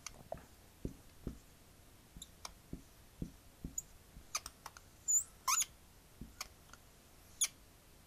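Marker drawing on a writing board: a string of short, scattered ticks and taps, with a few brief squeaks in the second half.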